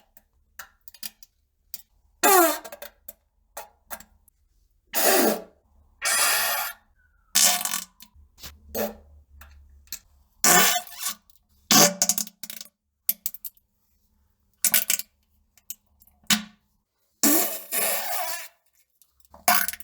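A run of separate farts, well over a dozen, most short blasts and a few longer ones of up to about a second, with short silent gaps between; some have a pitch that slides as they go.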